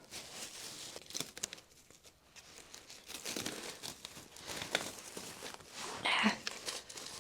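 Plastic cling wrap (saran wrap) being peeled and crumpled off seedling flats: irregular crinkling and tearing rustles, with a quieter lull about two seconds in.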